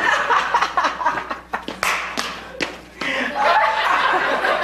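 Audience laughter after a punchline, dipping briefly and swelling again about three seconds in.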